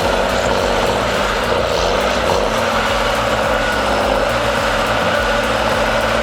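Heavy machine's engine running steadily at a loud level, with a dense rapid pulsing and a steady low hum.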